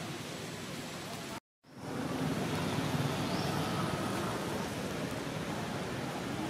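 Steady outdoor background noise, a low rumble with hiss, broken by a short gap of total silence about a second and a half in, after which the noise returns a little louder.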